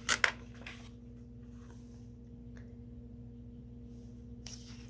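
A page of a hardcover book being turned by hand. There is a quick double swish of paper just after the start, then faint paper rustling, over a steady low hum.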